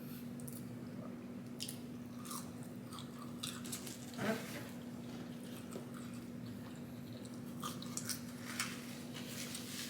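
A person chewing and biting into food close to the microphone, with scattered small crunchy clicks and one louder bite about four seconds in. A faint steady hum runs underneath.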